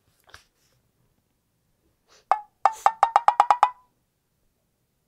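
Wood-block percussion: one knock, then a quick run of about nine knocks in about a second, each with a short ringing tone. Quiet before and after.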